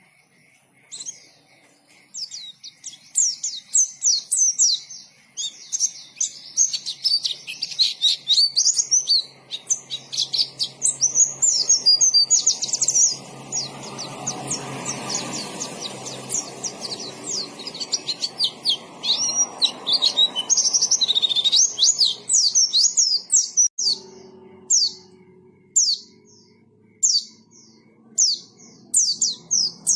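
White-eye (pleci) singing: a long, fast run of high twittering chirps, which thins out after about twenty seconds into separate short chirps.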